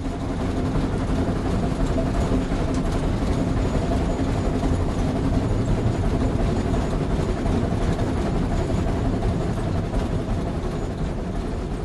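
Old steam locomotive train running, a steady rumble of train noise with a few held tones, fading in at the start and tapering off near the end.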